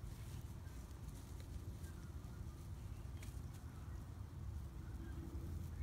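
Quiet outdoor background with a steady low rumble and a few faint clicks from a wolf dog puppy chewing on grass and weed stems.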